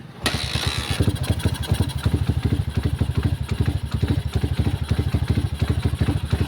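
Rusi motorcycle engine catching just after the start and then running with an uneven, pulsing beat, the hard-starting bike finally firing after a wiring fault cut its spark. Its rough, panting run is taken for a sign of a dirty carburetor.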